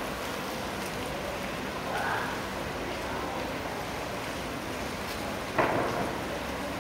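Canal floodwater lapping and washing over a flooded stone pavement, a steady wash of water noise, with one sudden sharp sound about five and a half seconds in.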